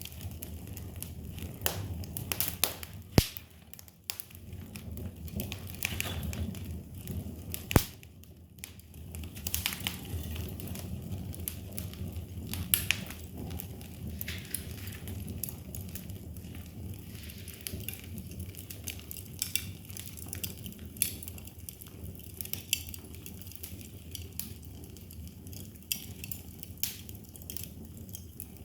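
Fire in a fireplace crackling and popping irregularly over a steady low rumble of flames, with two especially sharp, loud pops about three and eight seconds in.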